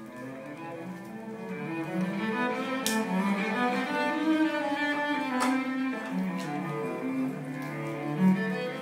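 Background music of bowed strings in slow, held notes, with a low cello-like line.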